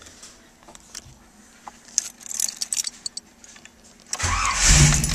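Keys jingling and clicking, then about four seconds in the 1988 Camaro's 305 TBI V8 cranks, catches and settles into a steady idle.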